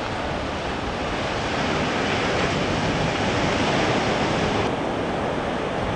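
Surf breaking on a beach: a continuous rushing wash of waves, swelling a little midway, that turns duller suddenly near the end.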